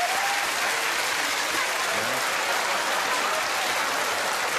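Studio audience applauding steadily, with a few voices whooping.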